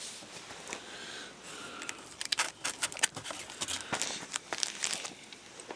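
Comic books being handled and shuffled, with crinkling and rustling and many small sharp clicks as they are moved.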